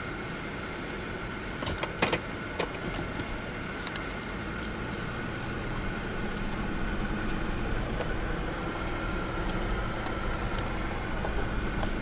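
Vehicle driving on a gravel road, heard from inside the cab: steady tyre and road noise, with a few sharp ticks about two and four seconds in.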